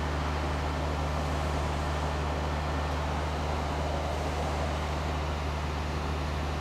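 Bucket truck's engine running steadily at idle, an even low drone with no change in pitch or level.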